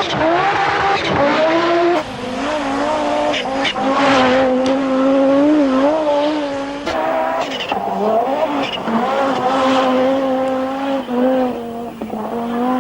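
Audi Sport Quattro S1 Group B rally car's turbocharged five-cylinder engine at high revs under hard acceleration. The pitch climbs, holds high with small wobbles, drops about seven seconds in, then climbs again.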